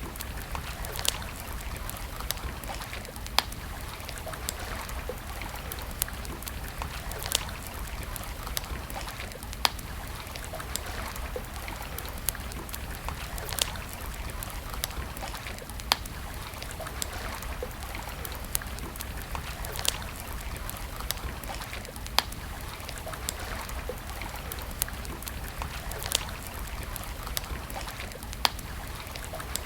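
Wood campfire crackling, with sharp pops every second or two over a steady rush of flowing water.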